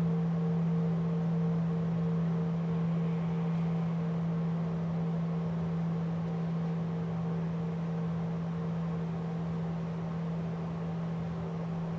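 Large bowl-shaped Buddhist temple bell ringing on after being struck: a low steady hum with a higher overtone that pulses a few times a second, slowly fading.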